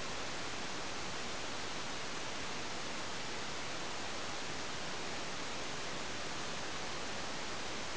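Steady, even hiss with nothing else on it: the self-noise of a small onboard camera's microphone, the camera lying with its lens buried in the ground.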